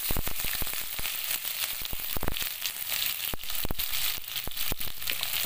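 Hot oil sizzling and crackling with many sharp pops in a kadai, as mustard and cumin seeds fry with freshly added grated ginger and chopped green chilli.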